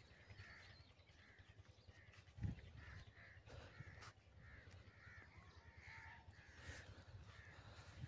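A bird calling over and over in faint short calls, about two a second, with one dull thump about two and a half seconds in.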